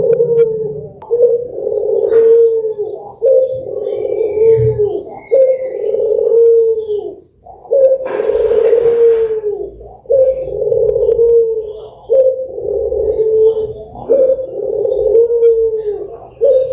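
Barbary doves (puter) cooing in a long unbroken series of low coos, one every one to two seconds, with a brief hiss about eight seconds in.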